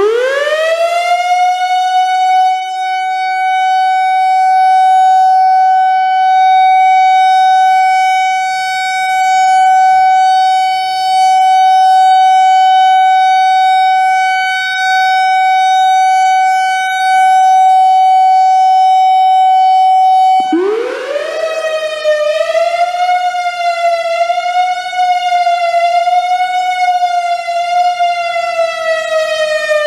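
Whelen WPS-3000 electronic outdoor warning siren. It winds up quickly into a steady tone and holds it, swelling and fading in loudness every few seconds as the rotating speaker array sweeps past. About two-thirds through it cuts off and switches to a new signal: it rises again into a tone that wavers up and down, then begins to fall near the end.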